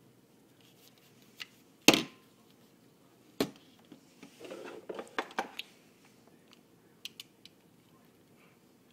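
Can openers handled by hand, making sharp clicks and knocks of metal and plastic. The loudest knock comes about two seconds in and a second about a second and a half later, followed by a short rattling clatter and a few light ticks. The electric opener's motor is not running.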